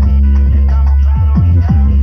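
Loud electronic music with heavy bass and several falling bass sweeps, played through a car sound system's speaker box of 7Driver SL 3K1 woofers.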